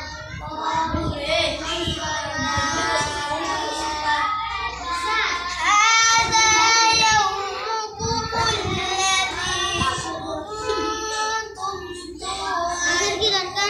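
A boy reciting the Quran aloud in a melodic chant (qirat), drawing out long held notes, loudest about six seconds in.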